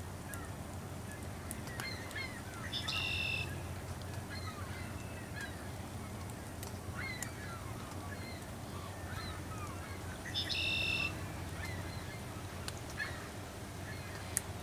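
Seabirds calling: a scatter of short chirping calls, with two louder, drawn-out high calls about three seconds and ten seconds in, over a steady low rumble.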